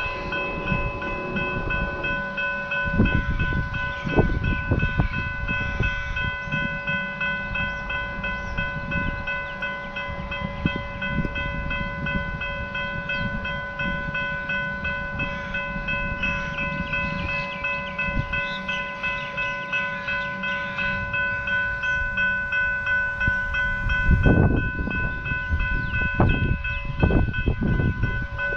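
Railway level crossing warning bells ringing steadily as the boom barriers lower, warning of an approaching train. Wind rumbles on the microphone, with a few heavier low thumps near the end.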